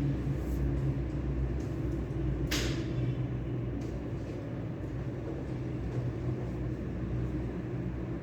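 Steady low rumble and hum of room ambience, with a brief rustle about two and a half seconds in.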